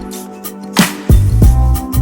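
Background music, a rhythm-and-blues style track with a steady drum beat and a heavy bass line.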